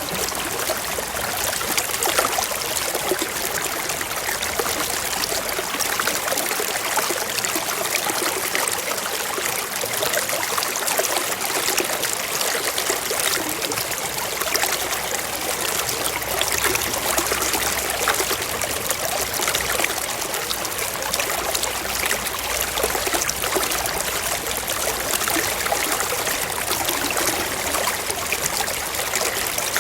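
Shallow stream running over rocks, a steady trickling and splashing of water.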